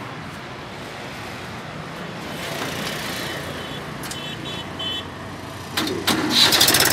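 Mahindra 265 DI tractor's three-cylinder diesel engine running steadily, then growing much louder with rapid clatter near the end. A few short high beeps sound a little past the middle.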